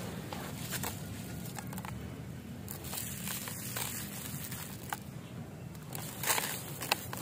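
Dry crumbled cement pouring onto a soaked cement mound in water: a crackly, gritty patter with scattered sharp ticks, the loudest near the end.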